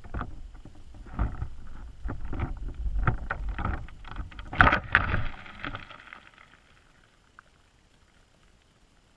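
Irregular knocks and rattles of a wire crab trap and its GoPro housing moving underwater, over a low rush of water against the camera. The knocks are loudest a little under five seconds in and die away about six seconds in as the trap settles on the bottom.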